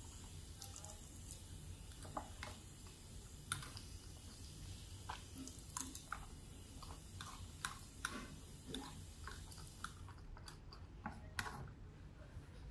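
Faint chewing of rice and beans, with scattered light clicks and taps from a plastic fork picking at a plate.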